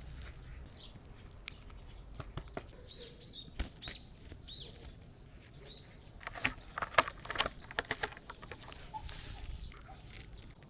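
A series of about six short, high chirps over a few seconds, followed by a burst of rustling and tapping.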